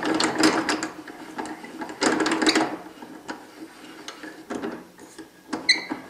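Blade-height crank of a Chicago Electric 10-inch table saw being turned to raise the blade, its gears and elevating mechanism rattling and clicking in two louder spells with lighter ticking between. A short squeak near the end.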